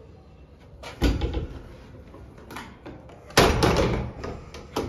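Old hinged shaft door of a historic Schumacher elevator being worked by its handle: a knock about a second in, then a loud bang with rattling as the door is slammed, followed by a few latch clicks near the end.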